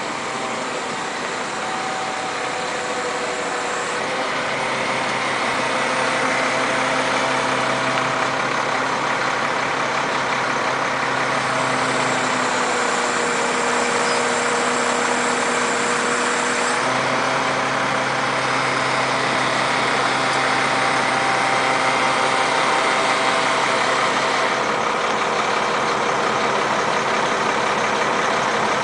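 A crane's engine running steadily, its pitch shifting up and down a few times as the revs change.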